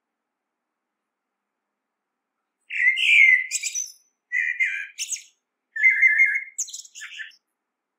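Male common blackbird singing: three short song phrases starting about a third of the way in, each a lower warbled phrase ending in a higher, thinner twitter.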